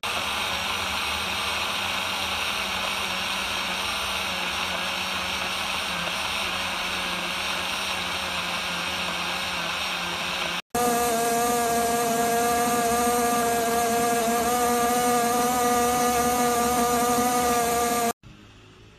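Portable USB-rechargeable blender (QC-888) running, its small motor whirring steadily as the blades spin. The first run stops about ten and a half seconds in, and a second run, with a clearer steady hum, takes over until it cuts off near the end.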